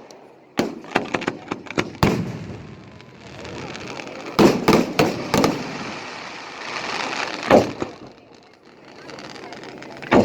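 Fireworks going off: a string of sharp bangs and pops, with a loud cluster of reports around the middle and another single loud bang later. A crackling hiss fills the gaps between them.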